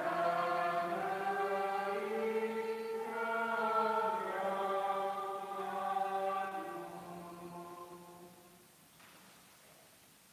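Voices singing the closing hymn of the Mass in long held notes. The last chord ends about nine seconds in.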